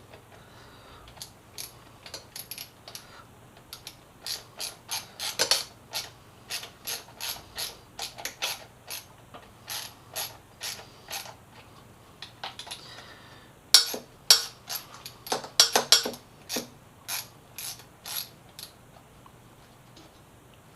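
Hand ratchet wrench clicking in short runs of strokes as the motorcycle's stay-bracket mounting bolts are tightened, with busier stretches about five seconds in and again around fourteen to sixteen seconds.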